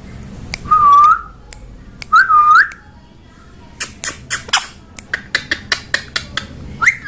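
Pet parrot whistling two short notes, each dipping and then rising. These are followed by a quick run of clicks and short, sharp chirps.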